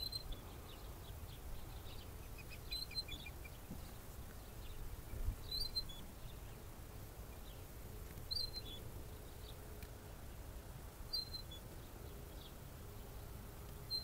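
A playground swing squeaking faintly: one short high squeak about every three seconds, in time with the swing's motion. A short run of small chirps sounds about three seconds in, over a low wind rumble.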